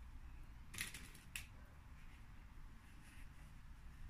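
Faint rustling of curtain fabric and lining being folded and handled, with two short rustles about a second in, over a low steady room hum.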